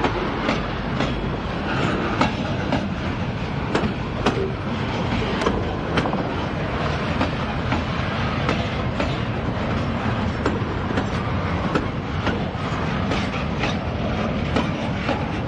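Freight train of steel-laden bulkhead flatcars rolling past: a steady rumble of the cars with frequent sharp wheel clicks, a few a second, as the wheels pass over the rails.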